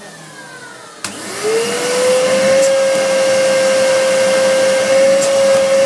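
Hoover PurePower vacuum cleaner motor winding down with a falling whine, then a sharp click of the newly fitted switch about a second in. The motor spins back up, its whine rising quickly and settling into steady, loud running, showing the new switch works.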